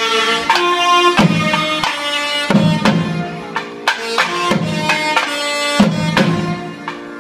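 Two saxophones play a melody of long held notes in South Indian temple style, over thavil barrel drums striking sharp, loud strokes that cut across the notes.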